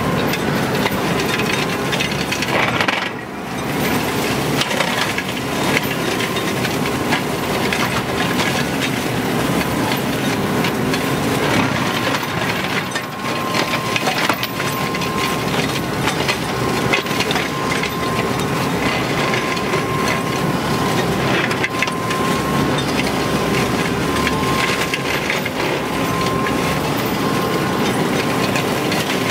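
Tractor-mounted WMB forest flail mower with two flail heads, its flails spinning and chopping through woody brush and weeds, a dense crashing, splintering noise over the tractor's engine, with a faint steady whine underneath. The noise dips briefly about three seconds in.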